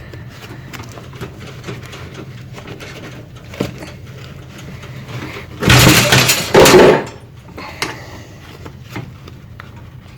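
Trauma shears clicking and snipping at a tough material that they don't cut through, with a loud metallic clatter lasting about a second about six seconds in.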